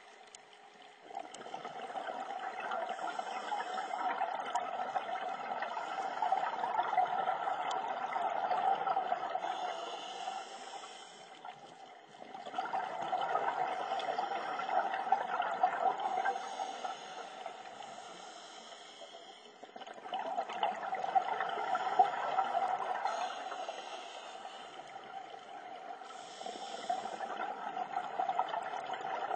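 Scuba diver breathing through a regulator underwater: long, slow exhalations of bubbling noise lasting several seconds each, with short pauses between breaths.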